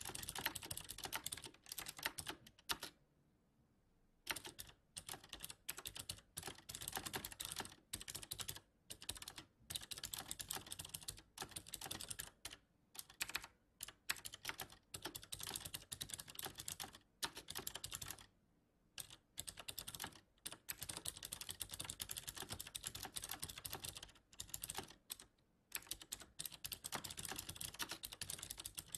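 Fast, continuous typing on a computer keyboard, broken by a few short pauses.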